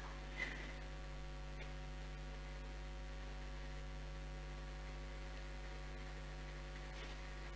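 Steady low electrical mains hum from the sound system, with a single faint tick about half a second in.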